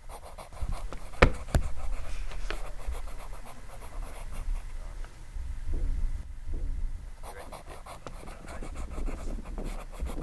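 Pen scratching in many short writing strokes, with a sharp tap about a second in and a low rumble underneath.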